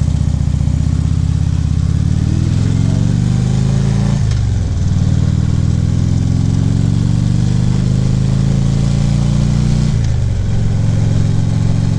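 2014 Harley-Davidson Ultra Classic Limited's V-twin engine accelerating away from a stop, its pitch climbing through the gears, with an upshift about four seconds in and another near the end, over a steady rush of wind.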